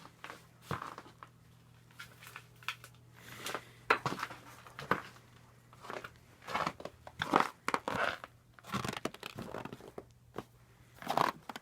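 Irregular crunching footsteps and scuffs, over a faint steady low hum.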